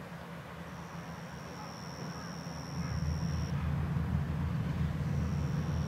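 Diesel engine of a two-car Kominato Railway KiHa 200-series railcar running as the train approaches, a low steady hum that grows louder about three seconds in.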